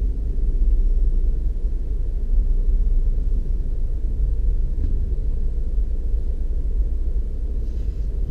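Low, steady rumble of a car's engine and tyres heard from inside the cabin as the car pulls slowly away from a stop.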